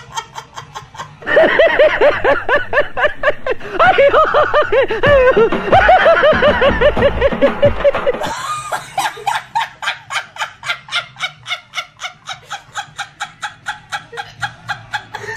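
A woman laughing uncontrollably in fast, rhythmic bursts of about five a second. The laughter turns loud and high-pitched about a second in and goes breathy and quieter over the last several seconds.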